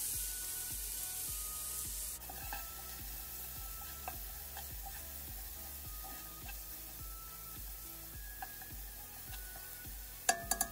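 Chopped onion dropped into hot melted butter in a nonstick pot: a loud sizzle for about two seconds that settles into a quieter steady sizzle as the onion is stirred with a spatula. A few sharp clicks of the spatula against the pot come near the end.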